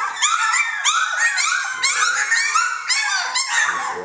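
Three-week-old Jamthund (Swedish Elkhound) puppies whining and yelping, several at once: a dense chorus of short, high-pitched cries, several a second, overlapping one another.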